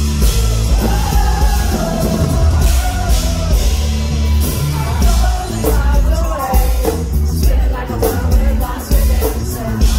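Live pop-rock band heard from the audience: drums, electric and acoustic guitars and bass playing loud and full, with a sung vocal line over them.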